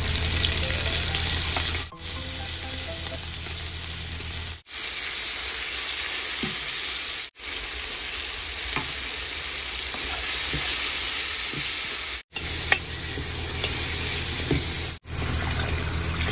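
Onions, ginger-garlic and sliced tomatoes sizzling as they fry in hot oil in a pan, with a spoon stirring and scraping now and then. The steady sizzle breaks off for an instant every few seconds.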